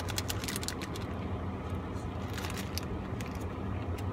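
Biting into and chewing a burger, with crackling clicks from the paper wrapper and the bite, in two short clusters. Under them is a steady low hum in the car cabin.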